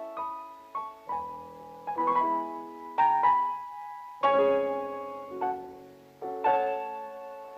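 Piano music: chords and melody notes struck in short groups, each left to ring and fade.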